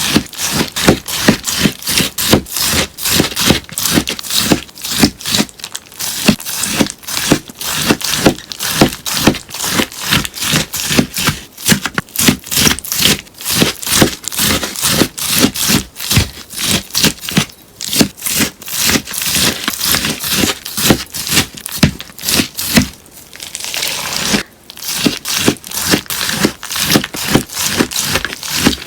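Melamine-sponge slime crunching crisply over and over, about three crunches a second, with a short lull about two-thirds of the way through.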